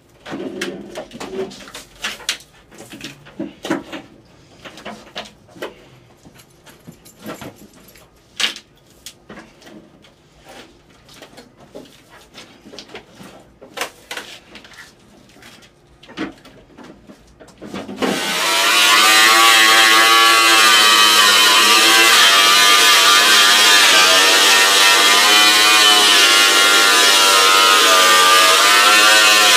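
Scattered knocks and clatter. About 18 seconds in, a cutoff-wheel grinder starts with a loud, steady high-pitched whine whose pitch wavers up and down as it cuts into the water heater's sheet-metal shell.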